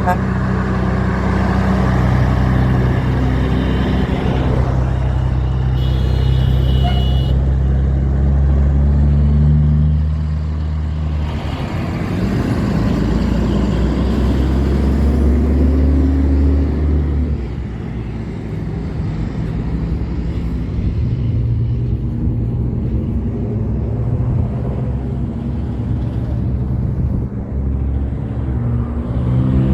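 Heavy diesel trucks passing on a road, their engines loud and steady for the first half, with one engine climbing in pitch as it accelerates; lighter traffic follows, and an air horn begins right at the end.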